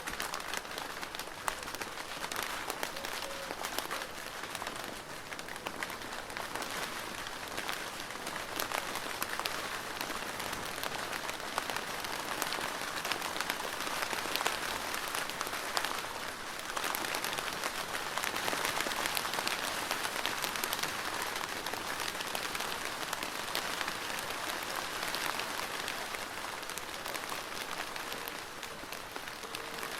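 Rain drumming on a plastic roof: a dense, steady patter of countless small drop impacts, growing a little heavier after the middle and easing off again towards the end.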